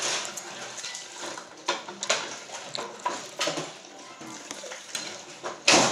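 A metal fork clinking and scraping on a china plate during eating, in short irregular clicks, with one loud sharp knock near the end.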